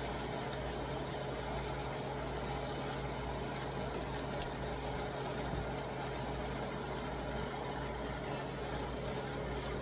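Pork and shredded red cabbage frying in a pan over a gas flame, a steady sizzle, over a constant low hum.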